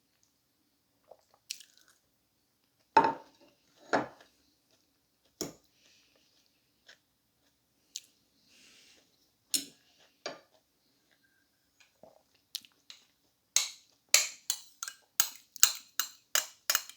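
Eating sounds close to the microphone: occasional chewing and utensil clicks against a plate. A quick run of clicks, about three a second, begins near the end.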